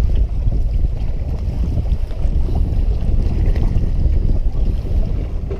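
Wind buffeting the camera's microphone: a loud, steady low rumble.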